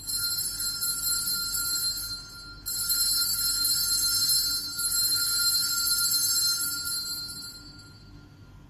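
Altar bells rung at the elevation of the chalice during the consecration: a high, bright ringing of several tones, rung twice, the second longer ring dying away near the end.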